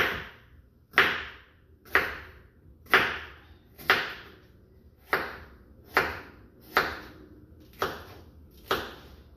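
Kitchen knife chopping a green bell pepper on a wooden cutting board: about ten sharp knocks of the blade on the board, roughly one a second.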